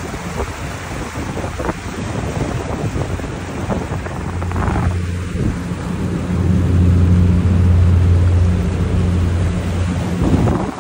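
Motorboat engine running with a steady low hum that grows louder past the middle, under a constant rush of wind and water noise. The sound drops away suddenly at the very end.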